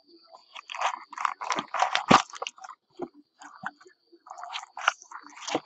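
Crinkling and tearing of trading-card pack wrappers and cardboard being handled as a box of card packs is opened, in irregular crackly bursts with sharp clicks, busiest about two seconds in.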